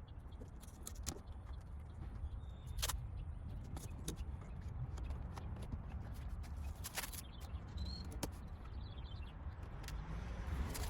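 Light taps and scrapes of a plastic card pressing automotive tape down around a car headlight, scattered irregularly over a low steady rumble.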